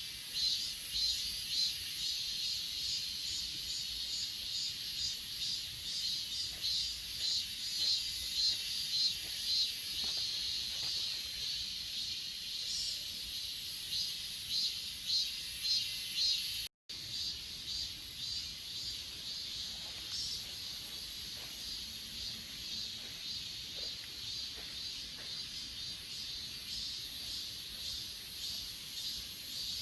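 A chorus of crickets and other grass insects calling steadily in high, pulsing trills. The sound cuts out for an instant a little past halfway.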